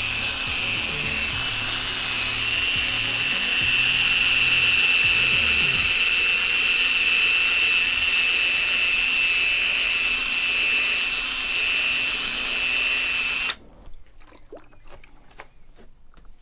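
Power drill spinning an 800-grit sanding disc against a plastic headlight lens: a steady high-pitched whine that cuts off suddenly about three-quarters of the way through.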